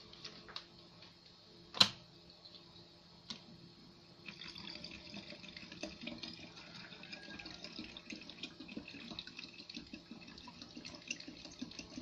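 A sharp click about two seconds in, then from about four seconds in vinegar pouring steadily into a plastic bottle, a continuous trickle with fine gurgling.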